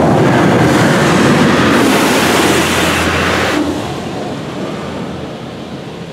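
High-pressure water jets of a PDQ LaserWash 4000 touchless car wash spraying onto the car, heard from inside the cabin as a loud, even hiss. It stays loud for the first three and a half seconds, then fades off as the spray moves away.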